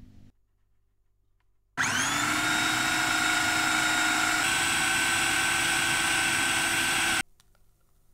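Electric food processor starts about two seconds in, its motor whine rising quickly to a steady pitch as it purées chopped zucchini and raw eggs into a batter. It runs for about five seconds and cuts off suddenly.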